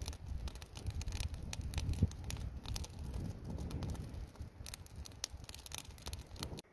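Small wood campfire crackling and popping, with wind rumbling on the microphone.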